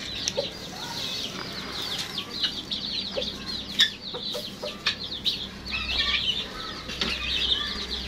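Aviary birds calling: small parrots keep up a busy, high chirping chatter, with a few low clucks from chickens and the odd click or wing flap.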